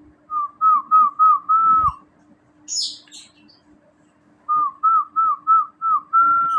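A clear whistled phrase of five short notes and then a longer held note, given twice a few seconds apart, with a few brief high chirps between.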